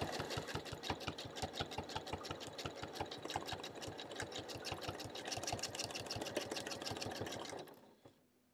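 Domestic sewing machine stitching fast in free-motion quilting. The needle and spring-loaded hopping foot beat a quick, even rhythm over the motor's hum. It winds down and stops about a second before the end.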